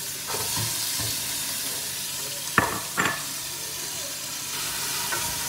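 Garlic and onion sizzling in hot oil in a pot as they are stirred, with two sharp knocks about two and a half and three seconds in.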